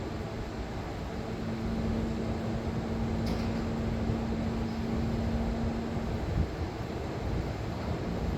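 HVAC equipment running after soundproofing: a steady fan-like noise with a low hum that stops about six seconds in, and a faint click about three seconds in.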